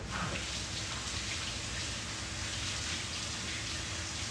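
Kitchen tap running steadily into a sink, water splashing over hands being washed.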